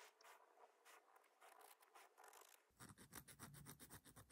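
Faint, quick, irregular rasping strokes of a round needle file on a small silver jump ring, neatening a freshly soldered joint. The strokes come thicker in the second half.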